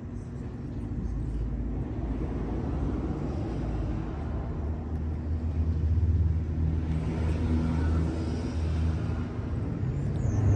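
Low rumble of a motor vehicle engine that builds over the first few seconds, is loudest through the middle, then eases off.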